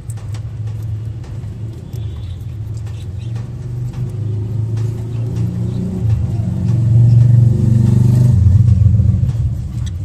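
A motor vehicle's low engine rumble, growing louder to a peak about seven to nine seconds in and easing off near the end.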